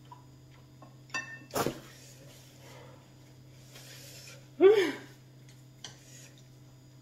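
A woman's wordless reactions to the burn of very spicy noodles. There is a short voiced sound about a second in and a sharp burst of breath just after. A paper tissue rustles around four seconds, and near five seconds comes a loud wordless cry that rises and then falls in pitch.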